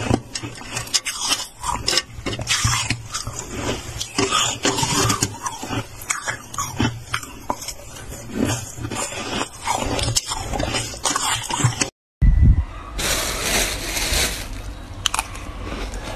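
Close-up crunching and scraping of freezer frost: a run of irregular crisp crackles, then after a short break about twelve seconds in, a thump and a dense burst of scraping crunch that eases into softer crackling.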